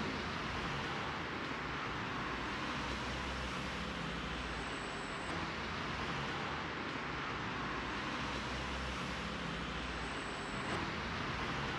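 Steady city street traffic: a continuous low rumble with an even hiss over it.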